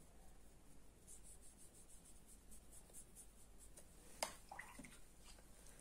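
Faint, quick strokes of a fine-tipped watercolour brush on paper, then a single sharp click about four seconds in.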